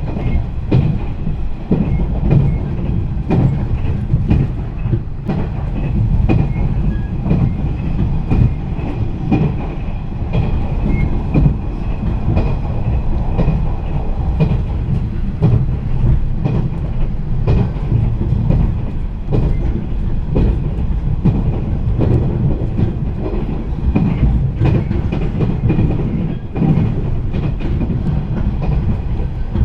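Running noise inside a JR East 485 series electric train at speed: a steady low rumble, with the clickety-clack of the wheels knocking over rail joints.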